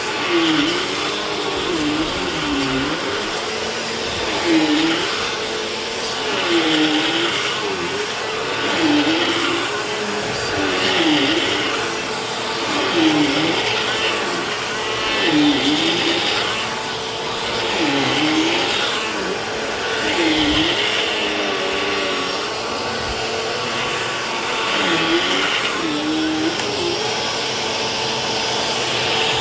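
Vacuum cleaner running continuously, its motor pitch dipping and recovering in a regular cycle about every two seconds, with the airflow hiss swelling at each dip, as the load on the nozzle changes stroke by stroke.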